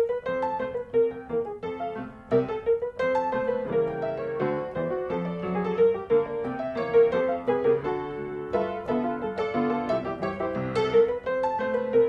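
Background piano music: a run of plucky keyboard notes over held lower notes, with one mid-range note coming back again and again.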